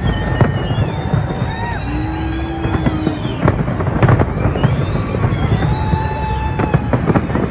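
Fireworks display going off: a steady low rumble of bursting shells with many sharp bangs and crackles, the loudest cluster about four seconds in.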